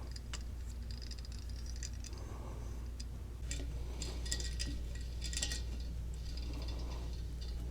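Small metal pipe fittings clinking and rattling as they are handled and threaded together, in scattered clicks that are busiest in the middle, over a low steady hum.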